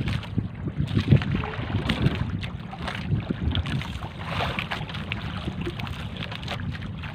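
Small outrigger fishing boat on choppy sea: wind buffeting the microphone and water splashing against the hull and bamboo outriggers, over a steady low drone.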